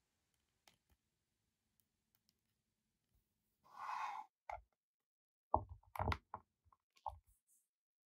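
Plastic figure and its plastic display base being fitted together by hand: a short scrape about four seconds in, then a cluster of sharp plastic knocks and clicks around six seconds, and one more knock about a second later, as the figure's feet seat onto the base's pegs.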